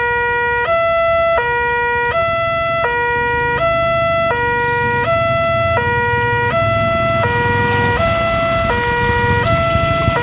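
Railway level-crossing alarm sounding through a TOA horn loudspeaker: two electronic tones, a lower and a higher, alternating steadily, each held just under a second. It is the warning that the crossing is closing for an approaching train.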